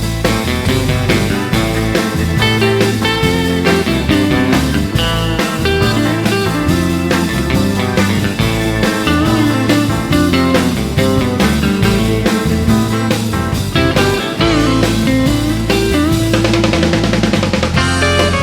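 Instrumental break of a rock and roll song: electric guitar playing quick lead lines over bass and a drum kit, with a fast run of repeated notes near the end.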